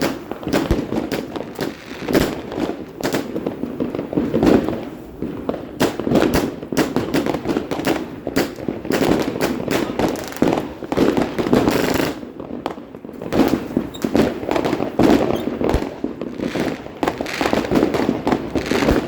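Fireworks and firecrackers going off: a dense, irregular run of bangs and crackles with no pause.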